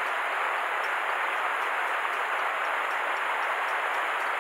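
River water rushing steadily, an even noise with no breaks.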